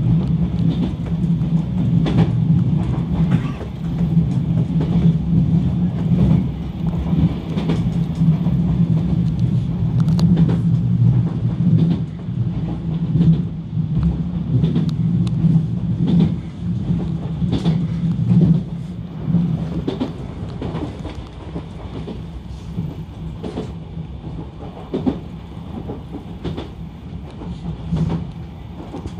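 Enshu Railway electric train running, heard from inside the car: a steady low running hum with scattered clicks from the wheels on the track, quieter in the last third.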